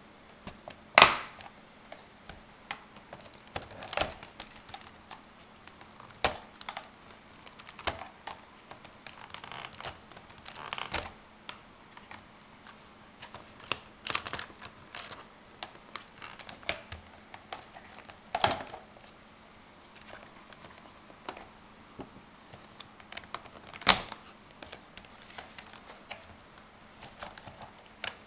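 Screwdriver prying apart the two plastic halves of a Dodge Ram's integrated power module housing: scattered clicks, creaks and cracks as the plastic snaps give way. The loudest crack comes about a second in, with another sharp one near the end.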